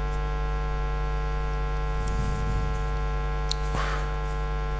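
Steady electrical mains hum: a low buzz with many evenly spaced overtones that holds unchanged throughout.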